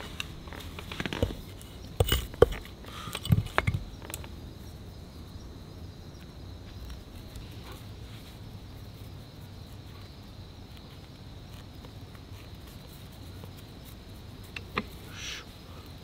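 Several sharp knocks of wood on wood in the first few seconds, then quiet forest ambience with a faint, steady insect trill. Near the end come a few light crackles as dry tinder fibres are pulled apart by hand.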